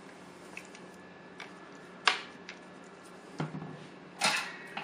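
Soldering flux popping and crackling under a soldering iron tip as solder is run along the pins of a quad flat pack chip: a few sharp, irregular pops, the loudest about two seconds in with a brief sizzle, and another crackling sizzle near the end.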